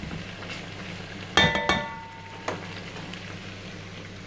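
Chicken pieces frying in rendered fat in a cast-iron pot with a steady sizzle. About a second and a half in, the spatula clinks sharply against hard metal and rings briefly, followed by a lighter knock.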